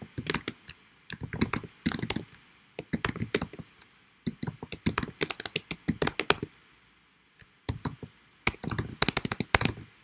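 Typing on a computer keyboard: quick runs of keystrokes in bursts, broken by short pauses.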